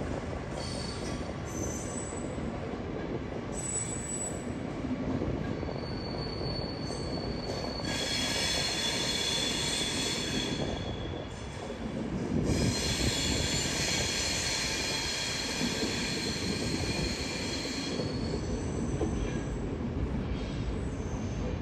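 Train wheels squealing on the rails over a steady low rumble of a passing train. Short high squeals come and go at first; the squeal grows loud for a few seconds about eight seconds in, breaks off briefly, then returns for a longer stretch from about twelve to eighteen seconds before fading to shorter squeals.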